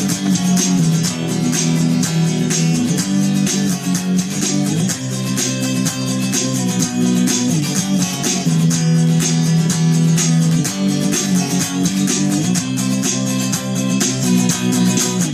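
Instrumental rock band music with no vocals: strummed guitars over a bass line, with dense, evenly repeated strokes.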